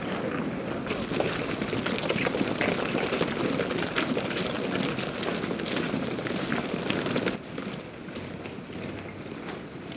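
Shuffling, crunching footsteps of a large column of people walking on a cobbled street strewn with rubble. The sound gets quieter about seven seconds in.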